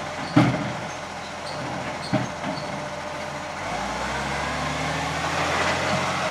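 Side-loading garbage truck's diesel engine running, with two sharp bangs in the first two seconds. From about three and a half seconds in the engine note rises and a climbing whine builds until it cuts off.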